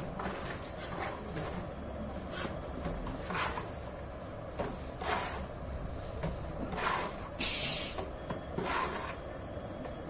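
Mason's steel trowel scraping and slapping cement mortar onto a brick wall: short strokes every second or so, with one longer, hissier scrape about three-quarters of the way through, over a steady low rumble.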